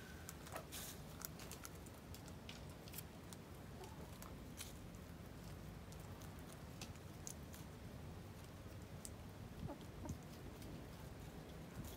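Hens pecking at food on the ground: irregular sharp pecking clicks, with a few soft clucks.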